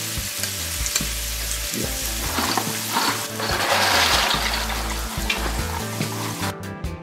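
A pot of salted water at a rolling boil, hissing and bubbling steadily. A little over two seconds in, dry castellane pasta is tipped in from its cardboard box, and the sound swells with a rustling splash for a couple of seconds. Music with a steady beat comes in just before the end.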